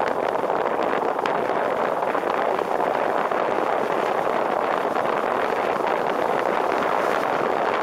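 Steady rushing noise of a car driving on a wet road in the rain, picked up outside on the roof: air rushing past the camera and tyres hissing through water, with faint scattered ticks.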